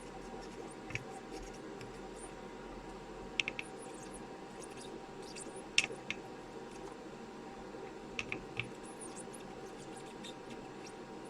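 Sparse light clicks and taps of hand tools working on a circuit board, some in quick groups of two or three, over a steady hum.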